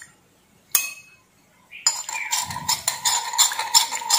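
Metal spoon stirring a foamy shampoo mixture in a glass bowl: a single clink, then from about two seconds in a rapid run of clinks and scrapes against the glass.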